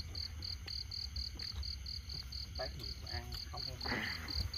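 Night insects chirping: a high, even pulse repeating about four times a second, over a steady high-pitched hum.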